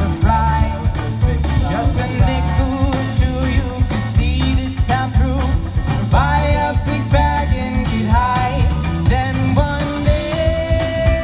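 A live rock band playing loud: electric guitars, bass guitar and drum kit, with a lead singer singing, and a long held note near the end.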